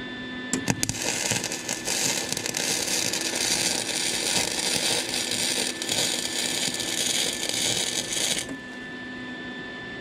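Flux-core wire-feed welder arc crackling and sizzling: a few sputters as the arc strikes under a second in, then a steady crackle for about seven seconds that cuts off abruptly near the end.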